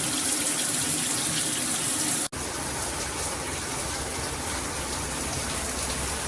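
Shower head spraying water steadily into a shower, a dense hiss of falling water. It cuts out for an instant about two seconds in and resumes with a deeper rumble.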